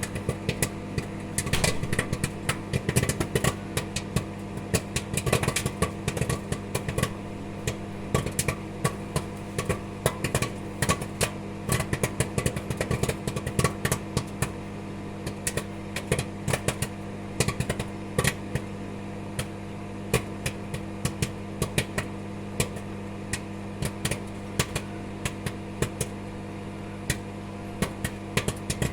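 Popcorn kernels popping inside a running microwave oven, sharp pops over the oven's steady hum. The popping is rapid in the first half and thins to scattered pops toward the end as the batch finishes.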